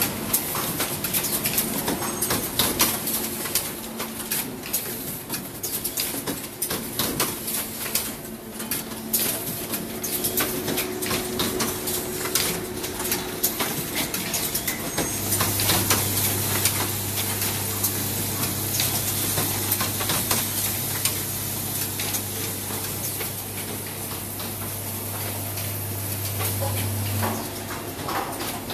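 Automatic plastic coat hanger production line running: a constant rapid clatter of parts and machine clicks over a steady hum. A low drone with a high hiss joins about halfway and stops shortly before the end.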